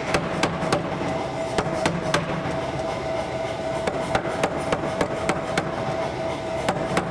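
Hammer blows on hot steel during forging, sharp metallic strikes about three a second at a slightly uneven pace, over a steady machine hum in the shop.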